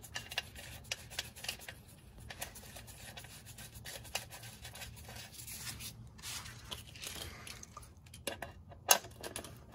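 Faint rubbing and scraping with scattered light metallic clicks as a new drain bolt and washer are threaded back into the Skyactiv 6-speed automatic transmission with a hex socket, over a low steady hum.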